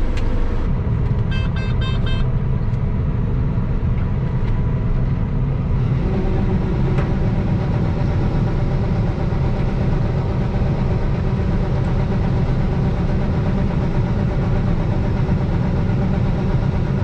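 Combine harvester running steadily through a corn field, with a quick run of electronic beeps about a second in.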